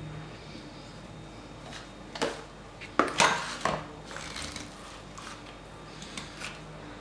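Plastic ice-cream scoop scraping through firm frozen ice cream and knocking against the plastic tubs: a cluster of sharp knocks and scrapes in the middle, then lighter scraping a few times after.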